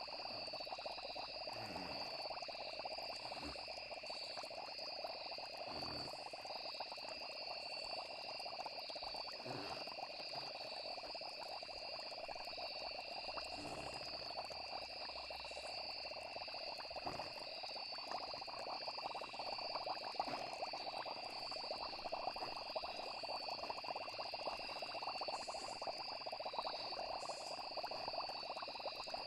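Night chorus of frogs and crickets: steady high insect trills over a continuous frog chorus.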